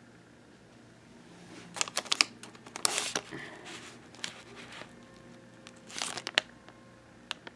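Coffee pouches and tea sachets crinkling as they are handled, in two spells: one about two to three seconds in, a shorter one about six seconds in.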